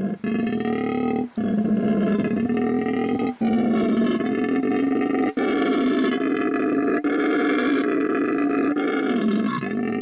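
Howler monkey roaring: one long, loud, rough call held on, with short breaks for breath about every two seconds in the first half.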